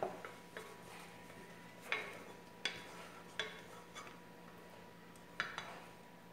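Wooden spoon stirring chicken in a metal pot, knocking and scraping against the pot's sides in sharp, irregular knocks about once a second.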